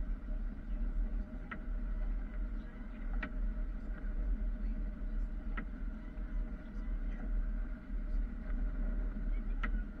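Snow-plow truck heard from inside its cab while driving through deep snow: a steady low engine drone and rumble with a few held tones above it. Short sharp clicks come a handful of times at uneven intervals.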